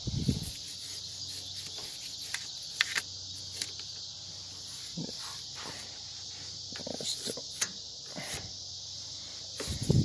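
Steady high-pitched insect chirring, with scattered light clicks and scrapes as a worn toothbrush scrubs corrosion off a battery terminal.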